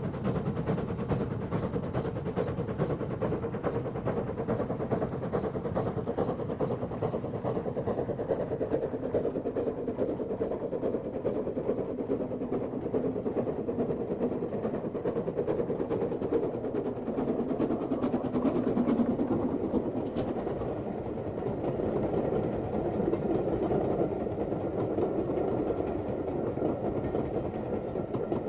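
Double-chimney BR Standard Class 4 4-6-0 steam locomotive hauling a passenger train, its exhaust beating rapidly and steadily, growing a little louder about two-thirds of the way through.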